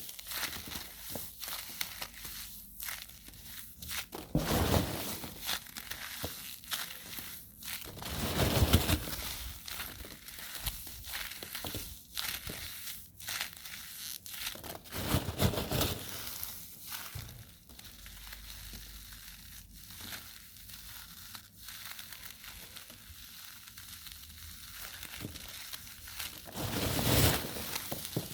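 Irregular crinkling and crushing sounds: a string of small crackles and clicks, with a few louder swells of rustling about four, eight, fifteen and twenty-seven seconds in.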